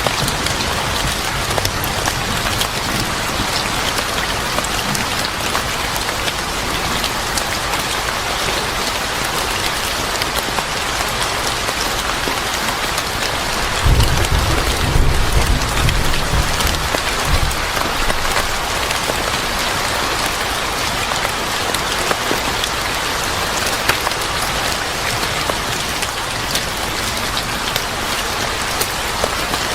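Steady, heavy rain falling on a surface, with a low rumble of thunder about halfway through that lasts a few seconds.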